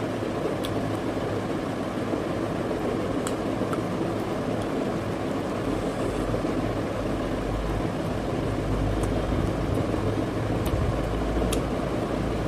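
Steady low whirring background hum with a few faint, scattered clicks from a knife cutting into a whole roasted chicken.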